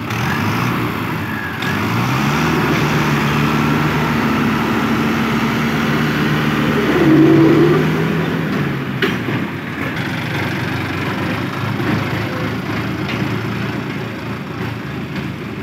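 Diesel engines of a JCB 3DX backhoe loader and a farm tractor running, with the engine note rising about two seconds in and holding as the backhoe works its arm to load soil, then dropping back after about eight seconds. A sharp knock comes about nine seconds in.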